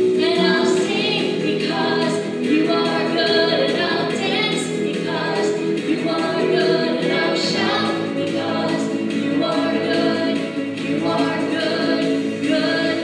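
A group of voices singing a worship song together, with musical accompaniment, in sung phrases with held notes.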